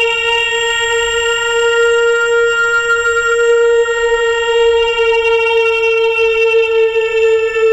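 Music: a single instrument note held steadily, a reedy, wind-instrument-like tone, with no beat or other parts playing.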